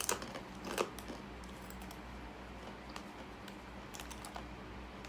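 Crunchy sweet plantain chips being chewed: a few sharp crisp clicks in the first second, then faint scattered crunches.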